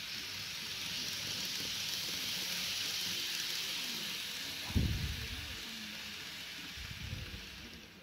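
Model 485-series train running round a small tabletop oval, its motor and wheels giving a steady hiss that swells and then fades as it circles. A dull thump about halfway through and a softer one near the end.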